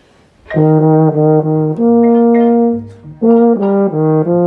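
Euphonium playing a musical phrase: a quick run of short notes starting about half a second in, a held note, a brief pause, then more short notes leading into another held note near the end.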